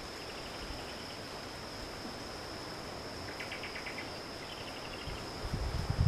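A steady high-pitched insect drone, with short rapid pulsing trills three times; low thumps come in near the end.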